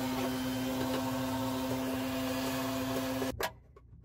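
Shop vac running steadily, vacuuming debris out of a boat's shower sump, then cutting off suddenly a little over three seconds in.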